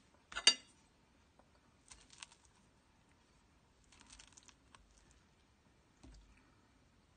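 A metal fork clinking on a ceramic plate and scraping through fried fish: one sharp clink about half a second in, then a few short bursts of small clicks and scratches.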